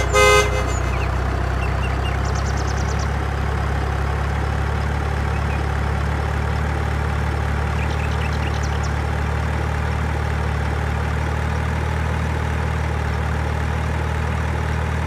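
A heavy truck engine idling steadily, with one short horn toot right at the start.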